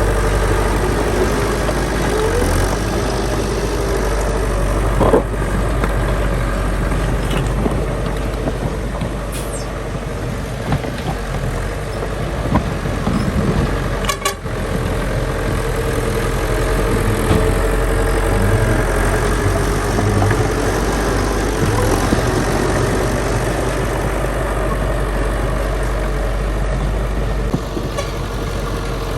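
Heavy diesel earthmoving machinery running steadily, with a steady whine over the engine and a couple of sharp knocks, one about five seconds in and one midway.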